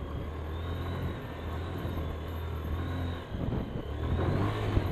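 Hero Honda Karizma ZMR's 223 cc single-cylinder engine pulling under load in second gear up a steep dirt climb. About three seconds in the note dips briefly, then comes back stronger with rough crackling noise over it.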